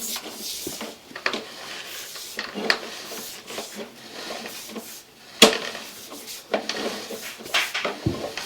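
Sewer inspection camera push cable being pulled back through the lateral: irregular knocks and clatters with rubbing between them, one sharp knock about five and a half seconds in.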